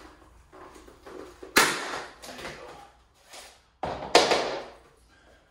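Knocks and scraping of an axe blade and a hard motorcycle helmet shell as the blade is worked loose and the helmet is handled. There are two loud knocks, about a second and a half in and just before four seconds, with smaller knocks between them.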